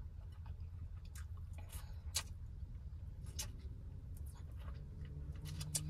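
Seafood boil being eaten by hand: scattered small clicks and wet squishing as the shellfish is handled and chewed, over a steady low hum.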